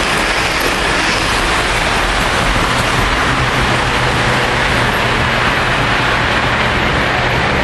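Lionel O gauge model trains running on three-rail track: a steady, loud rumble of wheels and motors with a low hum underneath.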